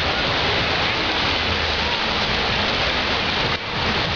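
Steady hiss of heavy rain, the level dipping briefly near the end.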